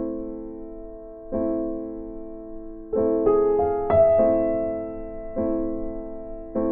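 Background piano music: soft chords struck every second or two, each ringing and fading, with a short run of quicker notes in the middle.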